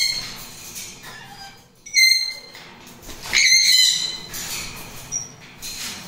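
Pet parrots squawking in a cage: three loud calls, one at the start, one about two seconds in, and a longer one about three and a half seconds in, with a short high chirp near the end.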